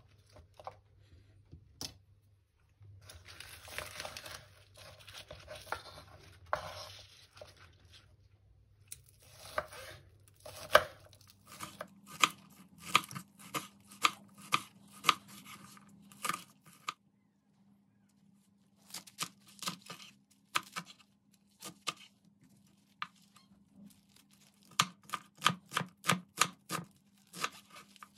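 Green onions rustling as they are handled, then a kitchen knife chopping them on a bamboo cutting board in runs of steady chops about two a second, coming faster near the end.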